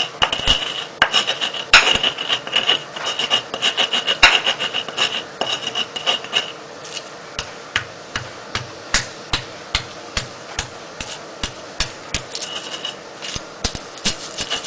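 Stone pestle grinding garlic, pepper and salt in a flat stone mortar (cobek and ulekan): gritty scraping of stone on stone with repeated sharp knocks, about two to three a second. A high steady tone runs faintly behind it through the first half.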